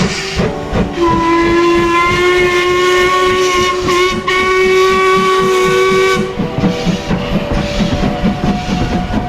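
Ivatt Class 2MT steam locomotive's whistle sounding one long steady blast of about five seconds, over the rhythmic chuffing of the engine working, which carries on after the whistle stops.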